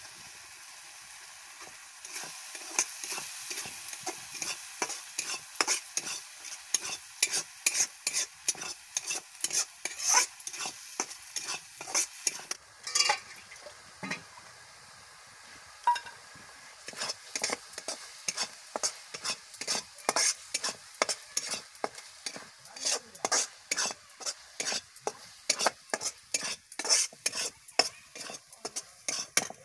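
A ladle stirring and scraping a thick ground spinach and potato paste in a steel kadai, about two to three strokes a second, over the hiss of the paste frying in oil. The strokes pause for a couple of seconds about halfway through.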